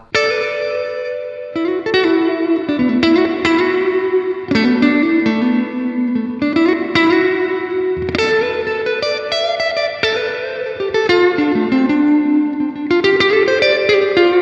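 Electric guitar played through a Strymon Cloudburst ambient reverb pedal with the reverb set high: picked notes in a slow melodic line, each ringing on into a long reverb wash that overlaps the next.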